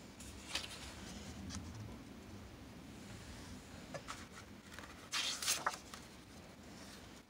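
Paper index cards being handled and swapped: a few soft scratchy rustles, then a louder cluster of rustling about five seconds in, over a low room hum.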